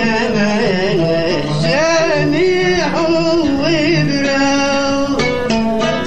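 Yemeni song: a man sings long, wavering melismatic phrases over held string tones. The voice drops out about five seconds in and plucked strings carry on.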